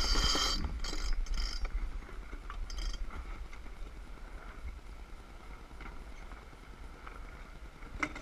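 Sailboat under way: a steady low rumble of wind and water, with a rush of rustling from the sails and sheets being worked as the boat comes about in the first second and a few shorter bursts after it. A sharp knock near the end.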